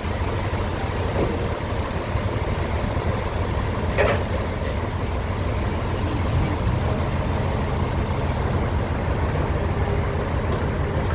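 Sawmill machinery running steadily with a low engine hum, with a single sharp knock about four seconds in.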